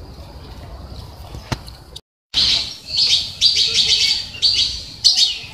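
Birds chirping and twittering in quick, high-pitched bursts. They start after a short break in the sound about two seconds in; before that there is only a faint outdoor background with a single click.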